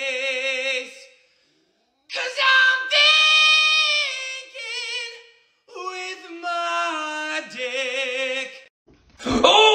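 Unaccompanied high-pitched singing voice holding long, wavering notes in several phrases with short pauses between them, and a loud sudden burst near the end.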